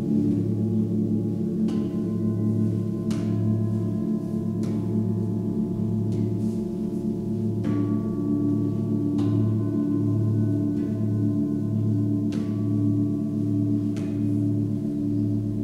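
Tibetan singing bowls of seven-metal alloy, struck again every few seconds (about seven strikes). Their deep tones ring on and overlap in a steady drone with a slow wavering beat.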